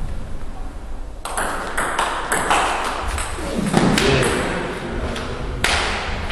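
Table tennis ball in a short rally: a quick run of sharp clicks as the celluloid ball hits the bats and table, ringing in a large hall. A louder burst of noise about four seconds in ends the point, and there is one more click near the end.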